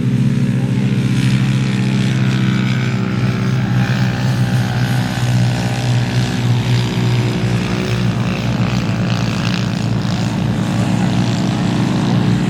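Off-road race vehicle engine running steadily with a low, even drone.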